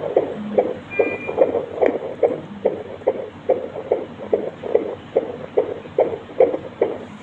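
Fetal heartbeat picked up by an ultrasound Doppler monitor: a fast, steady run of whooshing beats, about two and a half a second (around 145 beats a minute), in the normal fetal range.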